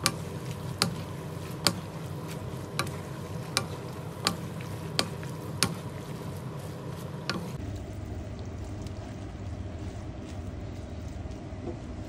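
A wooden spatula knocks against a nonstick pan about eight times, roughly one knock every three-quarters of a second, as stir-fried noodles and vegetables are tossed. The knocks stop a little past halfway, over a steady frying sizzle that continues throughout.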